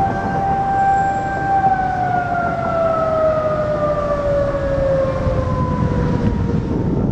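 Outdoor tornado warning siren holding a steady tone, then winding down with a slow fall in pitch that fades out near the end.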